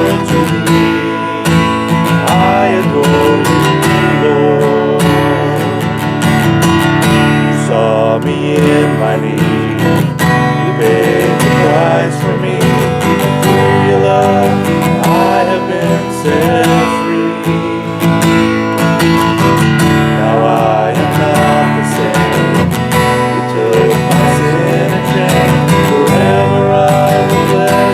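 Worship band music with acoustic guitar strumming steadily, playing between songs without vocals.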